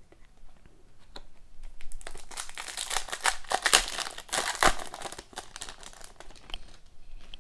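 Foil wrapper of an Upper Deck Ice hockey card pack crinkling and tearing as it is ripped open, a dense run of crackles strongest between about two and five seconds in.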